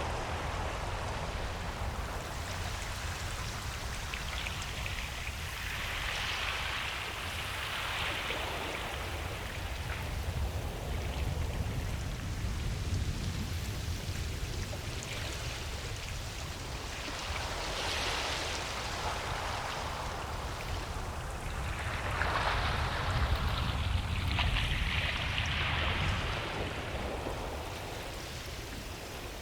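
Ocean surf on a beach: a continuous hiss of waves washing in, swelling and easing as waves break every several seconds, over a steady low rumble.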